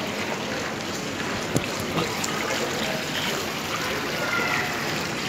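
Steady rushing background noise like running water, with faint distant voices and a single sharp click about one and a half seconds in.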